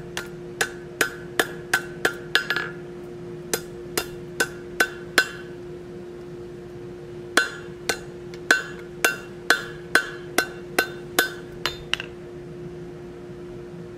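Hand hammer blows on hot mild steel, about two to three a second in three runs with short pauses, each blow ringing briefly; the hammering stops about twelve seconds in. A steady low hum runs underneath.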